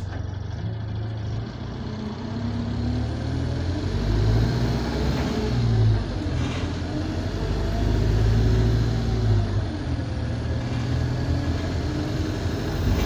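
Diesel single-deck bus engine heard from inside the passenger saloon, pulling in two surges of acceleration about four and seven seconds in. A faint high whistle rises and falls with the engine; the uploader says the bus has a burst turbo.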